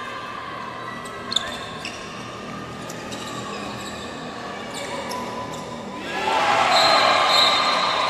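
Handball game in a large sports hall: the ball thudding on the court and shoes squeaking on the floor, with a sharp thud about a second in. From about six seconds in it gets louder, with more squeaking and shouting.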